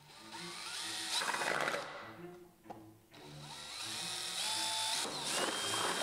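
Power drill with a twist bit boring through a plastic jar, in two runs. The first stops about two seconds in. The second starts about a second later and keeps going, its motor whine rising as it spins up.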